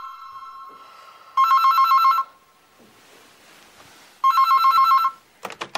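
Telephone ringing with an electronic two-tone warbling trill: the tail of one ring fades out at the start, then two more rings come about three seconds apart. A short clatter of knocks follows near the end.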